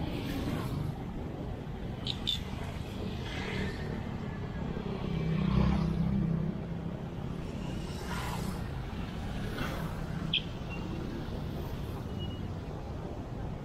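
Steady wind and road rumble from riding a fat-tyre e-bike with a helmet-mounted camera, a louder low rumble swelling briefly about halfway through, and a few short squeaks or clicks.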